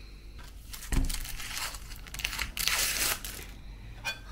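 A dull knock about a second in, followed by about two seconds of crinkling and rustling from handling in the kitchen, and a light click near the end.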